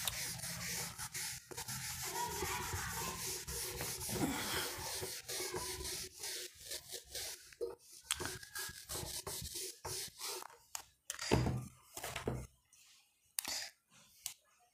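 Rubbing, scratching hand strokes on a writing surface: about six seconds of continuous rubbing, then shorter separate strokes with pauses between them.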